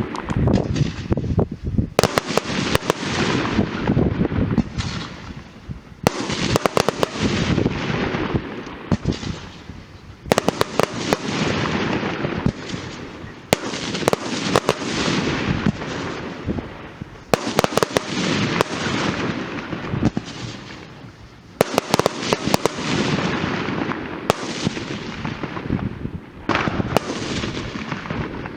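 Funke fireworks going off. Clusters of sharp bangs come about every four seconds, each followed by a dense crackling hiss that fades away.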